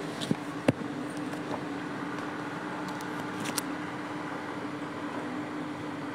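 Steady mechanical room hum, with a few sharp light taps: the sharpest just under a second in and a pair more about three and a half seconds in.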